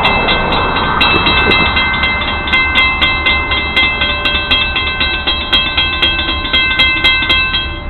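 Grade-crossing warning bells ringing in rapid, evenly spaced strikes, over the low rumble of an Alco RS-32 diesel locomotive approaching the crossing. The bells stop near the end.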